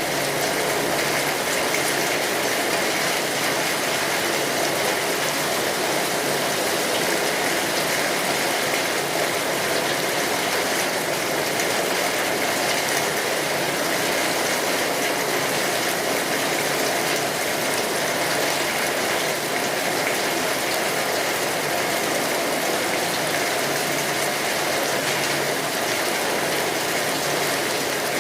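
Steady heavy rain falling and pattering on a surface, an even rush with many small drop ticks.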